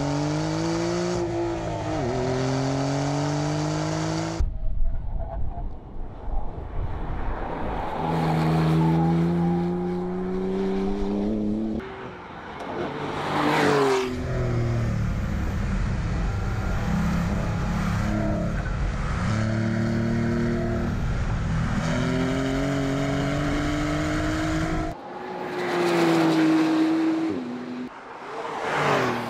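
A Porsche 911 Carrera GTS's 3.0-litre twin-turbo flat-six accelerating hard, its note climbing again and again and dropping back at each upshift. The car passes close by twice, about halfway through and near the end, its pitch falling as it goes.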